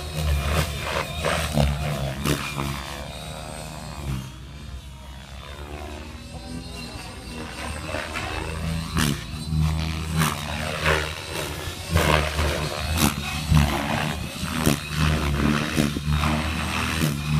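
Radio-controlled model aircraft flying overhead, its steady motor drone fading between about three and eight seconds in as it moves farther off, then growing louder again as it comes back.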